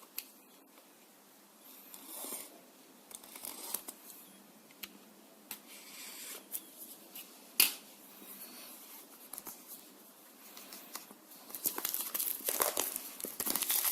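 Hands unboxing a small action camera: cardboard box and packaging handled, with scattered clicks and taps and one sharp click about halfway through. Plastic wrapping crinkles and tears, getting louder near the end.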